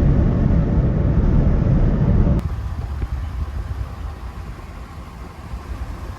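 Road noise of a truck driving at speed: a steady low rumble that changes abruptly about two and a half seconds in to a quieter rumble with a light hiss.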